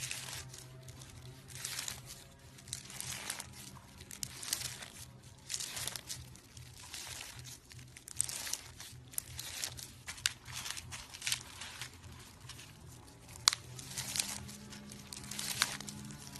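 Slime being squeezed and pressed by hand, giving an irregular run of crackling, popping squishes, with one sharper click about thirteen seconds in.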